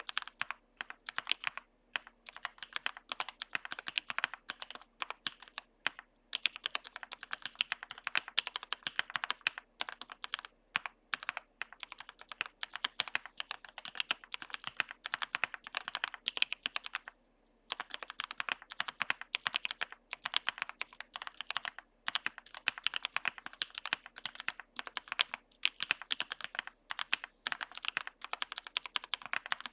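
Fast typing on the Cornelius prototype v2 mechanical keyboard with H1 switches lubed with Krytox 205g0: a dense run of key clicks, broken by brief pauses, the longest about seventeen seconds in.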